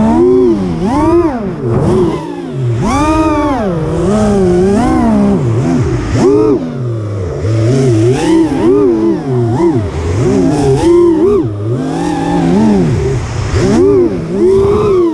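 Racing quadcopter's four brushless motors (2206 2525kv) spinning 5-inch three-blade propellers, whining with a pitch that rises and falls constantly as the throttle is worked through turns and gates. Heard from the drone itself, so the whine is close and loud.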